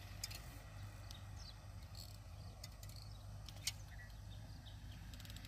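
Faint outdoor ambience: a steady low rumble with a few short high chirps and two sharp clicks, the louder one about three and a half seconds in.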